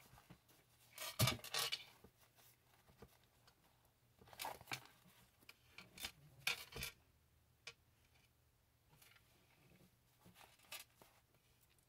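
Paper pages and card of a handmade junk journal rustling and flapping as the book is handled and its pages are fanned, in several short bursts. The loudest comes about a second in, and only light taps follow after about seven seconds.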